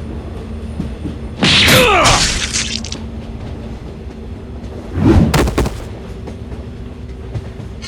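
Animated-video sound effects: a loud burst with a falling pitch sweep about a second and a half in, then a low boom about five seconds in, over a steady low hum.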